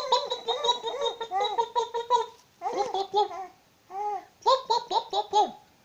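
Baby laughing in quick runs of high-pitched laugh pulses: one long run over the first two seconds, then shorter bouts after brief pauses.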